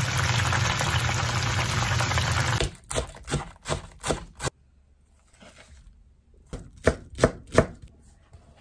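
Chicken pieces deep-frying in oil with a steady sizzle, which cuts off after about two and a half seconds. A kitchen knife then chops green onions on a cutting board: five quick strikes, a pause, then four more.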